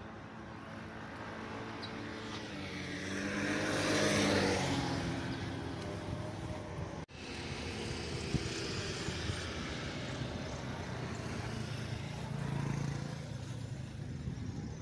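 Engine noise of a passing vehicle that swells to a peak about four seconds in and fades, with a brief sharp break about seven seconds in followed by a steady engine sound.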